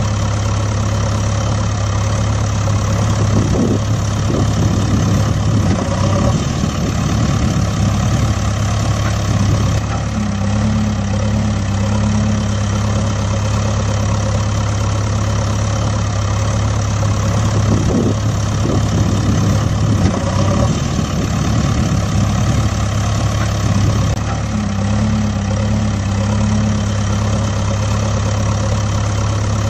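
Heavy engine idling steadily, a machinery sound effect laid over a string-pulled toy wheel loader. The same stretch of engine sound repeats about every fourteen seconds.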